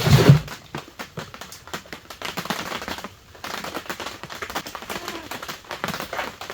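Irregular, rapid clicking and rattling of small hard objects being handled, opening with a heavier thump and pausing briefly about three seconds in.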